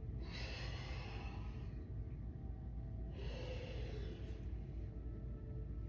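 A woman's deep, audible breaths timed to a slow spinal movement: two long, airy breaths about three seconds apart, each lasting about a second and a half.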